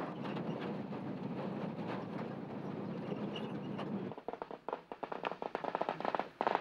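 Truck engine running steadily. From about four seconds in, a string of firecrackers crackles in quick succession and keeps going.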